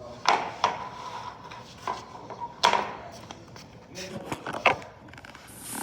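Several sharp clinks and knocks of hard objects being handled, about five over the stretch, one leaving a short ringing tone.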